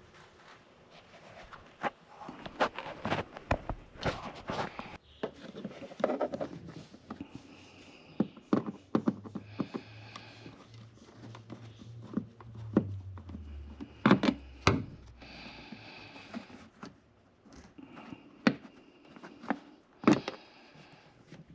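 Scattered plastic clicks and knocks with short stretches of scraping: the plastic fasteners and trim of a car's windshield cowl being worked loose and handled by hand.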